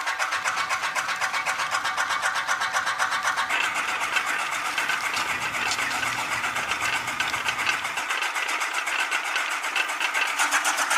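Small electric motor of a model tractor running steadily and turning a miniature flour mill through a belt, with a fast, even rattle as the mill grinds wheat.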